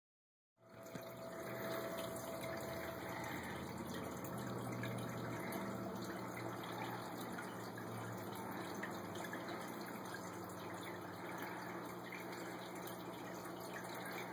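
Aquarium water bubbling and trickling from the air-stone bubbles and filter, with a steady low hum underneath.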